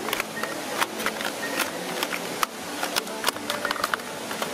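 Plastic pieces of a tiger-head shaped twisty puzzle cube clicking and clacking as its layers are turned quickly by hand, in irregular snaps.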